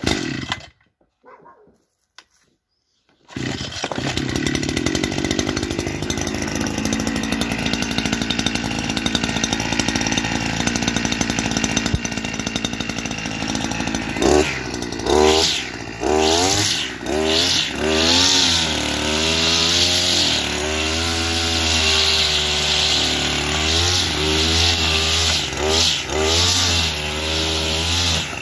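Oleo-Mac BC 530 T two-stroke brushcutter being started with its recoil cord: a couple of short pulls, a pause, then the engine runs steadily from about three seconds in. From about halfway the throttle is opened and released again and again, the engine revving up and dropping back as the brushcutter is worked against dry grass.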